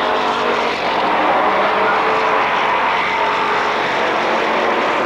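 A pack of stock cars' engines running hard around an asphalt oval during a race, a steady loud drone of several engines at once.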